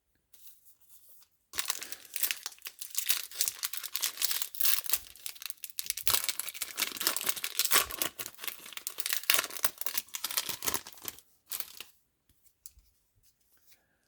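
Foil wrapper of a Topps baseball card pack being torn open and crinkled: a crackling rustle from about a second and a half in until near the end, with one short burst after it.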